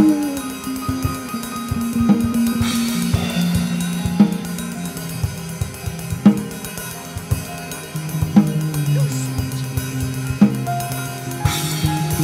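Slow live band music led by a drum kit, with a strong drum hit about every two seconds and a cymbal swell about three seconds in. Held low notes from another instrument sound underneath.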